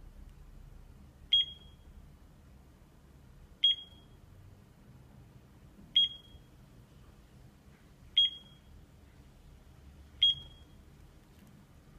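LED desk alarm clock beeping: five short, high beeps, evenly spaced about two seconds apart.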